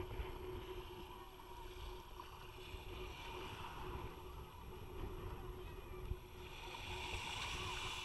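Small waves lapping and washing on a sandy beach, with one wash swelling near the end, over a low rumble and a faint steady hum.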